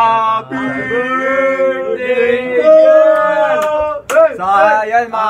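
A male voice singing long, held notes, with a brief sharp click about four seconds in.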